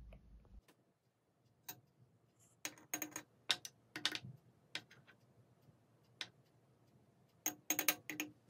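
Metal spoon clinking against a ceramic teacup and a glass mug as syrup is scooped and poured: scattered sharp clicks, with quick clusters about three seconds in and again near the end.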